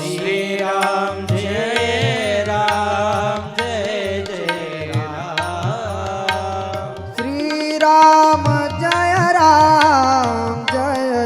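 Marathi devotional bhajan: a voice sings a slow, ornamented melodic line over a hand-drum beat. The drum drops out briefly about seven seconds in and comes back.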